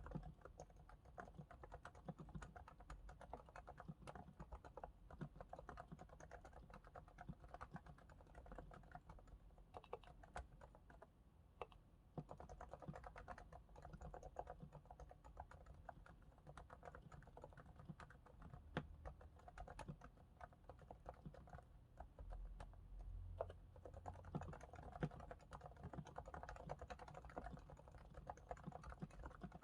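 Continuous typing on a Realforce R2S keyboard with silent 45 g Topre electrostatic capacitive switches, their sliders lubricated with Krytox 105 and stabilizers with Krytox 205. The keystrokes are quiet, rapid, soft clicks, with a short lull about eleven seconds in.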